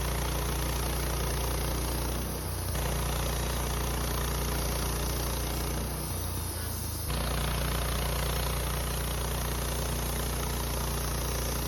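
Wood-Mizer LT15 bandsaw sawmill's engine running steadily while sawing a log. Its note dips briefly twice, about two seconds in and again around six seconds in.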